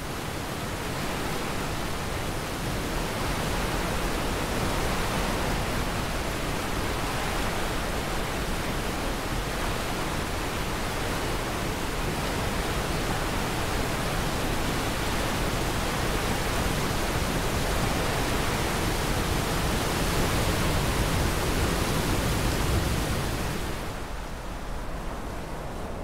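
Waterfall swollen with muddy monsoon floodwater, a steady, dense rushing roar of falling water that eases slightly near the end.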